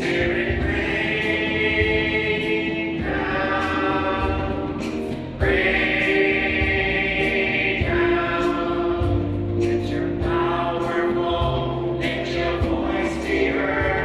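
A church worship group and choir singing a slow worship song into microphones, holding long notes over a backing band. The sound gets louder about five seconds in.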